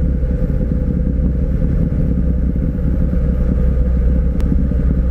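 Outrigger boat's engine running steadily, a loud, dense low rumble heard close up from on board.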